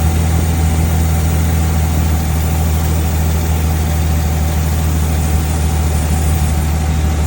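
1988 Jeep XJ engine idling steadily under the open hood, with a vacuum leak in the engine bay hissing, heard as a thin steady tone over the engine.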